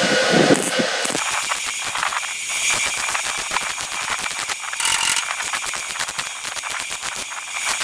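Rapid mechanical clicking rattle, many clicks a second over a steady high whine. It starts about a second in, taking over from a steady rushing noise.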